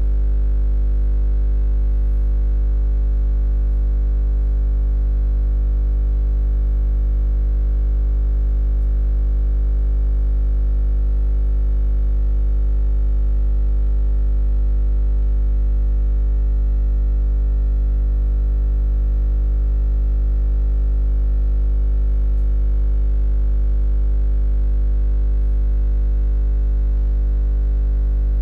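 A steady, unchanging low hum with many evenly spaced overtones, strongest in the deep bass.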